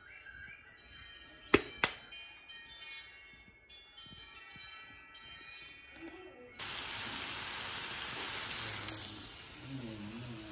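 Soft, ringing chime-like tones with two sharp clicks close together about a second and a half in. About two-thirds of the way through, a loud steady hiss starts suddenly and eases off slightly toward the end.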